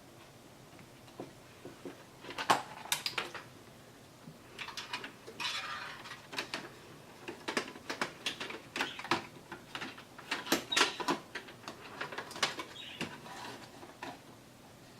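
Irregular clicks, knocks and scraping of plastic and metal as a card reader is worked into a PC case's drive bay.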